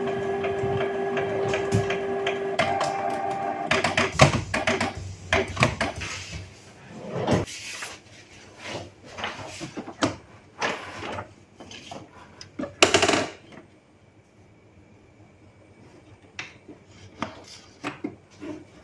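Canon G3060 ink tank printer's mechanism running with a steady hum as it initializes after power-on, with a freshly fitted carriage belt; the hum stops about four seconds in. It is followed by irregular clicks, taps and rustles as paper is handled on top of the printer, with one louder clatter about 13 seconds in.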